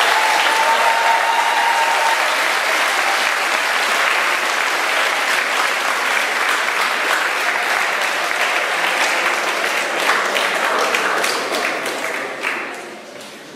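Audience of pupils and adults applauding steadily, dying away near the end.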